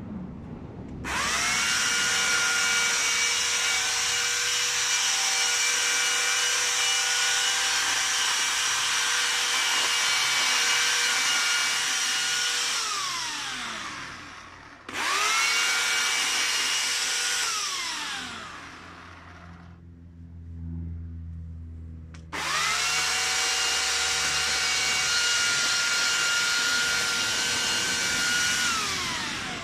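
Corded electric hedge trimmer running in three bursts, a steady high motor whine as it cuts through the hedge. Each burst starts abruptly and winds down with a falling whine when the trigger is let go. In the longer pause between the second and third bursts there is a low rumble.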